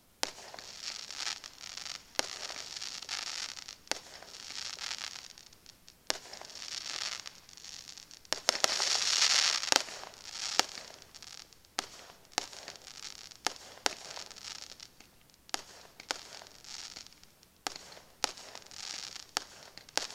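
Aerial fireworks display: shells bursting in sharp bangs about once a second, over swells of crackling and hiss from the bursting stars. The crackling is densest about halfway through.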